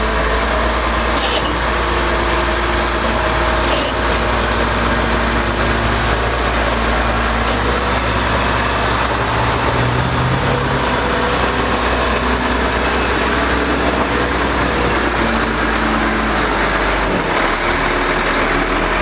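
Heavy road machinery running steadily during asphalt milling: a loud, even din of engines and machine noise.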